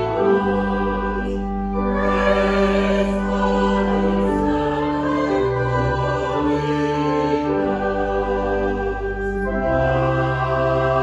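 Slow sacred choral music: a choir singing long held chords that change every couple of seconds.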